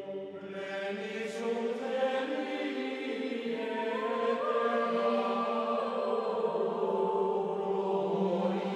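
Slow background music of sustained choral chanting: voices hold long notes that step slowly to new pitches.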